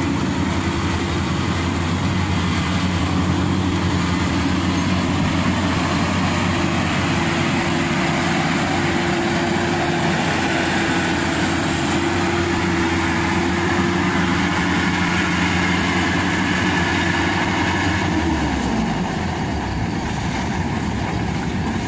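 Maxxi Bimo Evo Xtreme tracked rice combine harvester running steadily under load while harvesting, its engine note mixed with the clatter of the cutter and threshing machinery. Near the end the engine note falls in pitch and the sound eases.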